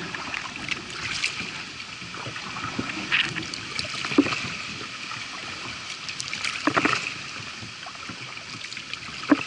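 Kayak paddling through floodwater: the paddle blade splashing at irregular strokes and water sloshing along the hull, with a sharp knock near the end.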